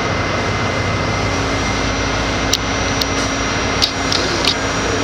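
Steady hum and rush of an R68 subway car's ventilation and onboard equipment while it stands in a station, with a low tone coming in about a second in and a few light clicks in the second half.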